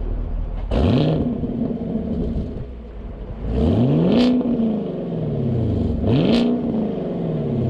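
A 2019 Chevrolet Camaro SS's 6.2-litre V8 on its stock exhaust, idling and then revved three times, each rev climbing and falling back to idle. The second and third revs are longer than the first.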